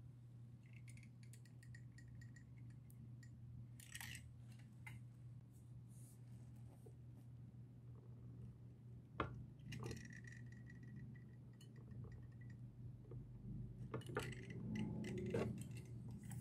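Faint handling sounds inside a small glass tank: light clicks and taps against glass and stone, one sharp click about nine seconds in and a busier patch near the end, over a steady low hum.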